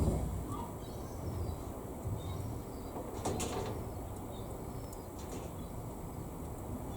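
Faint clicks and light handling noise of small plastic model-kit parts being positioned by hand, over a low steady background hum.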